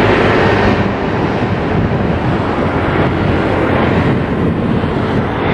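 Boeing 737-500's CFM56 jet engines running at low power, a loud steady rush and rumble without clear changes.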